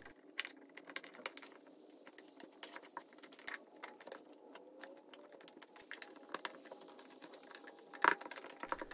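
Light, irregular clicks and taps of small wooden parts being fitted into slots and set down by hand, with a sharper knock about eight seconds in.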